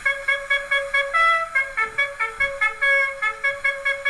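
Wind-up portable phonograph playing a 78-rpm record: a solo trumpet plays a quick bugle-call tune in short, evenly paced notes. The playback is thin, with almost no bass.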